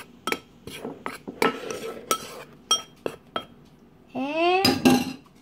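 Metal spoon clinking against a ceramic bowl while stirring seasoned flour: a run of sharp, ringing clinks at irregular intervals. About four seconds in comes a short vocal sound that rises in pitch.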